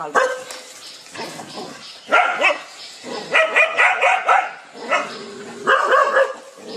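Dogs barking in quick clusters of several barks, with short pauses between the clusters.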